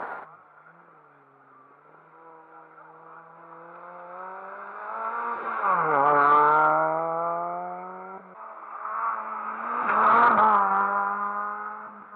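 Rally cars passing close by at speed with engines revving hard: the engine note climbs as the first car, a Suzuki Swift, approaches, then drops in pitch as it goes by about six seconds in. A second car passes the same way about ten seconds in.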